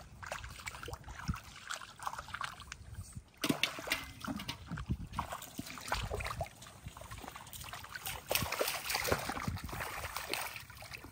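Shallow muddy water splashing and sloshing in irregular bursts as a barefoot child wades through it and grabs at fish by hand.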